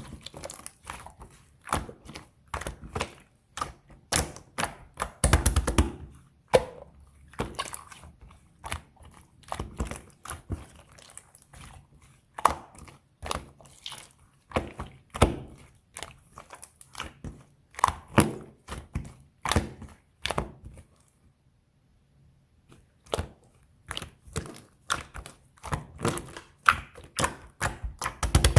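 Slime being squeezed and poked by hand, making irregular sticky clicks and pops, several a second, with a brief pause about two-thirds of the way through and a louder cluster near the start and at the end.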